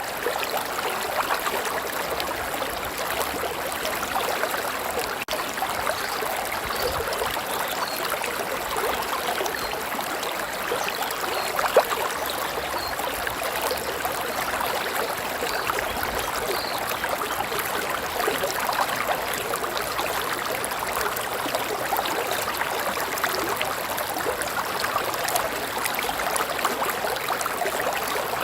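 River water flowing steadily over a streambed. One brief, sharper sound stands out about twelve seconds in.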